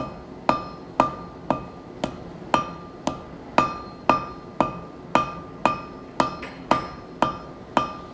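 Hand hammer forging architectural bronze on an anvil at a dull red heat: steady blows about two a second, each with a short metallic ring from the anvil.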